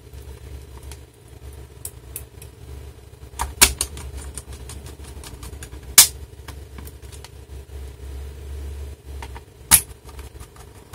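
Light clicks and taps of screws and small tools being handled on a laptop's plastic underside while its base screws are put back, with three sharper clicks: a few seconds in, about six seconds in and near the end. A low steady hum runs underneath.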